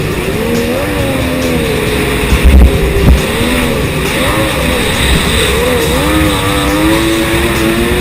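Kawasaki SXR1100 stand-up jet ski engine running under throttle, its pitch rising and falling over and over, with two loud low thumps about two and a half and three seconds in.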